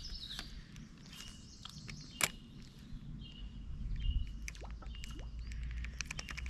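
Spinning rod and reel handled during a cast: a sharp click about two seconds in, scattered small clicks and handling rustle, and a quick run of clicks near the end. Short bird chirps come and go in the background.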